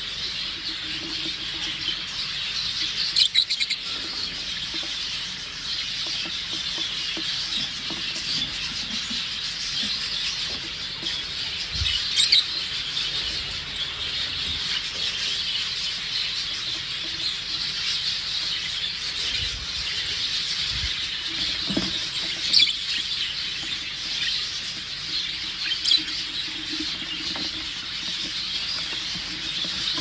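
Many budgerigars chattering and chirping together in a continuous, dense warble, with a few sharper, louder sounds standing out now and then.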